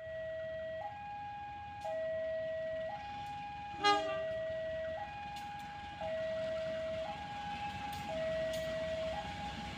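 Railway level-crossing warning alarm sounding two electronic tones, a lower and a higher one, each held about a second and repeating. About four seconds in, a brief loud honk cuts across it. The alarm signals an approaching train.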